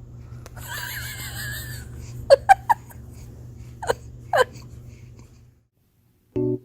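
A baby's breathy vocal sound, then short high-pitched squeaks, each dropping in pitch: three in quick succession, then two more.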